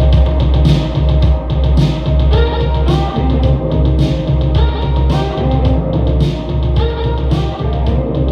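Rock-style music with drums, deep bass and guitar played through JBL Stage 250B bookshelf speakers, with a steady beat of about two drum hits a second over a strong bass line.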